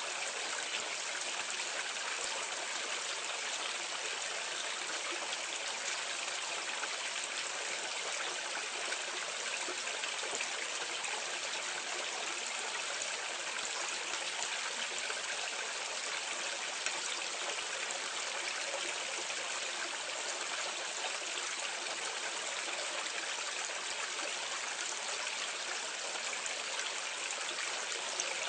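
Water pouring steadily out of a drain outlet and splashing below, heard from a medium distance as an even, unbroken rush with a slight trickle.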